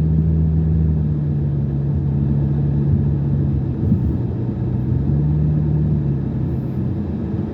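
Car engine and road noise heard from inside the cabin while driving: a steady low rumble with a low engine hum that dips a little in pitch about three seconds in.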